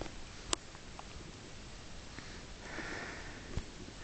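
A soft, breathy sniff about three seconds in, with a few sharp, light clicks before and after it.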